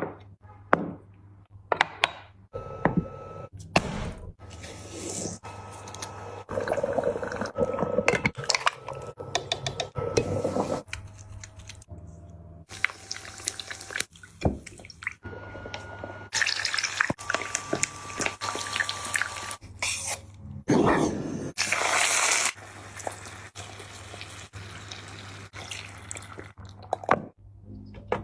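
Close-up eating sounds: wet chewing and slurping, broken by many sharp clicks and taps.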